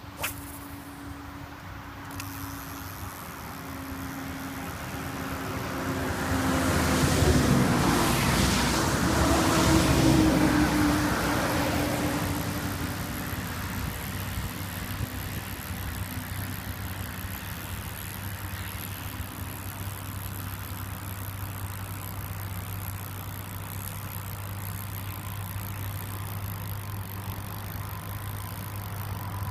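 A motor vehicle going past: engine noise that swells over several seconds, peaks, then fades away into a steady low hum.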